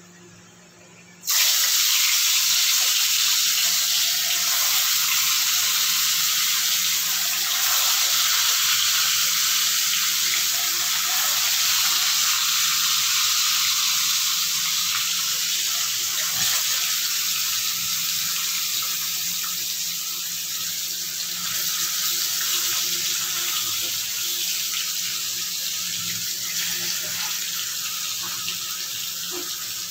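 Turmeric-and-salt-coated fish pieces sizzling in hot mustard oil in a kadhai, deep-frying on a medium flame. The sizzle starts abruptly about a second in and eases off slowly.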